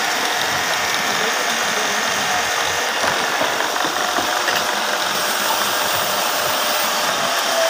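Motor-driven wood lathe running, a steady, even mechanical noise with no break.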